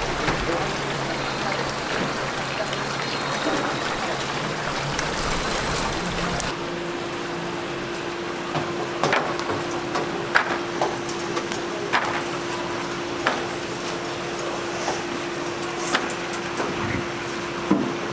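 Chicken pieces sizzling and bubbling in a deep fryer of hot oil, a dense hiss. About six and a half seconds in, the sound changes to a lower hiss with a steady hum, broken by sharp metallic clicks and knocks as fried chicken is handled in a wire fry basket.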